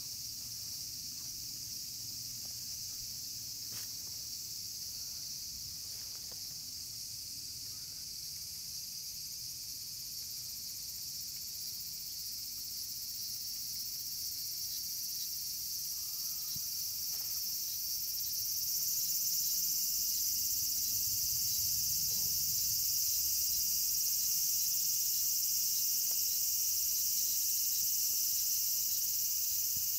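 A steady, high-pitched insect chorus, growing louder about two-thirds of the way through.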